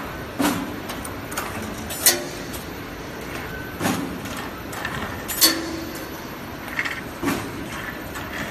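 Automatic wire mesh panel welding machine running: a heavy metallic clank with each welding stroke, about one every second and three-quarters, five in all, over a steady mechanical din.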